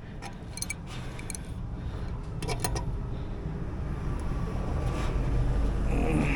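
A low rumble that slowly builds, with a few light metallic clinks in the first three seconds, then a short spray-like hiss near the end as more of something is applied to the blower wheel and shaft.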